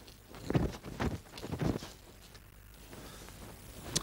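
Three short thuds and swishes of movement, about half a second apart, as a martial artist works through a form with a red-tasselled long spear, then a single sharp click near the end.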